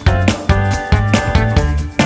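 Upbeat background music with a steady beat, bass and bright pitched instruments, in a funk style.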